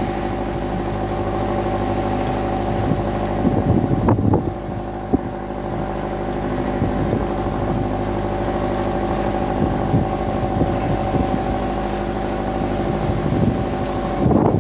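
Fishing boat's engine running steadily, with a few knocks over it, the sharpest about five seconds in.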